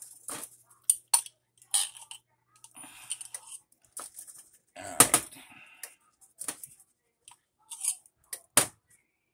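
Table knife clinking against a jar of cheese spread and scraping as it spreads a stiff cheese mixture onto bread on aluminum foil: a scattered series of short sharp clinks and scrapes, the loudest about five seconds in.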